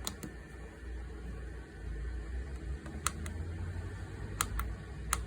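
Buttons on a Hcalory diesel heater's control panel clicking as the advanced-menu password digits are stepped through: a handful of short, sharp clicks, some in quick pairs, over a steady low rumble.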